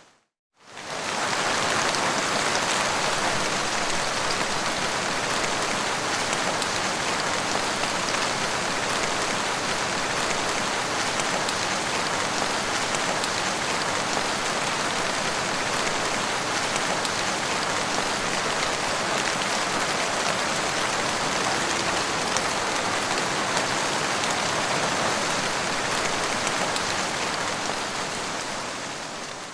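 Heavy rain falling steadily on a car's windscreen, an even hiss that fades in just after the start and fades out near the end.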